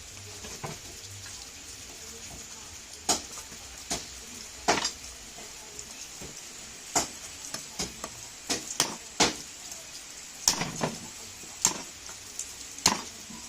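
Sharp, irregular clinks and knocks of cooking utensils against pots and pans, coming more often in the second half, over a steady hiss.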